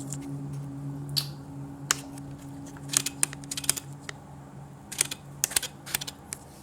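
Light clicks and taps in irregular clusters, over a low steady hum that fades out about halfway through.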